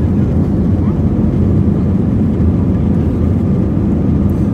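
Airbus A320 cabin noise during climb-out: the steady rumble of the jet engines and rushing air heard through the fuselage, strongest in the low end. A faint steady whine comes in near the end.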